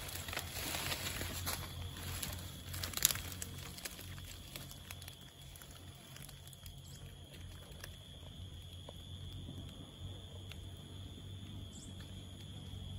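Steady high insect trill. Rustling and handling noise in the first three seconds, with a sharp click about three seconds in.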